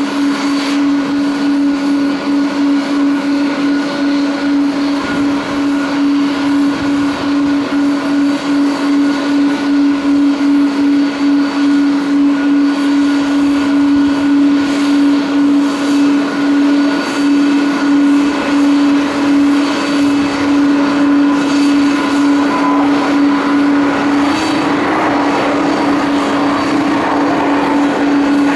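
Boeing 777-300 airliner's two jet engines running at takeoff power during the takeoff roll: a steady loud engine noise with a constant hum underneath. The noise grows fuller near the end as the plane speeds closer.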